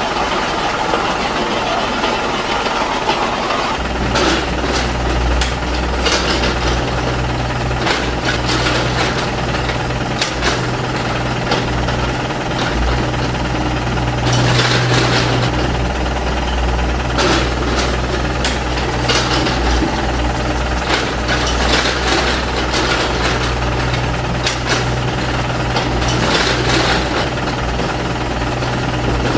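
Radio-controlled model excavator working, with a steady low engine-like drone that sets in about four seconds in. Irregular clicks and rattles run over the drone as it digs and loads soil into a model dump truck.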